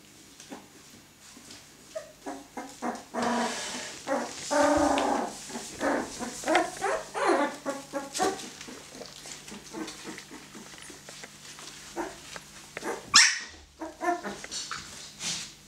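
Fifteen-day-old husky puppies yipping, whining and play-growling in many short bursts, busiest in the first half. A single sharp, loud noise comes about 13 seconds in.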